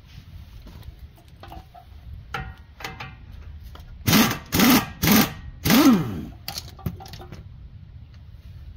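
Cordless power tool motor run in four short trigger bursts, about four to six seconds in, its pitch rising and falling with each burst, during tie rod replacement on a truck's front end. Before the bursts come a few light clicks and clanks of tools.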